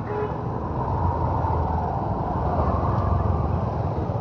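Road traffic with a vehicle passing close by, its engine and tyre noise swelling through the middle.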